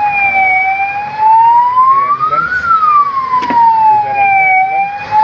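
Ambulance siren wailing, its pitch sliding slowly up and down about once every four seconds.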